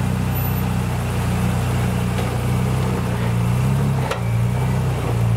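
Nissan Patrol GU's engine running at low revs under load as the 4x4 crawls up a rock step, the revs rising and falling a little. One sharp knock sounds about four seconds in.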